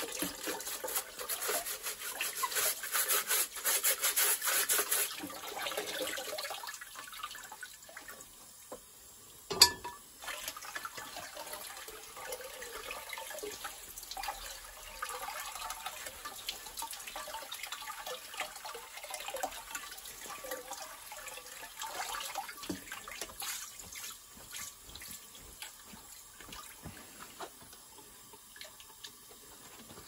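Tap water running over a tumble dryer's aluminium condenser in a sink while a bottle brush scrubs fluff from between its fins. The scrubbing is loudest in the first five seconds, and there is one sharp knock about ten seconds in.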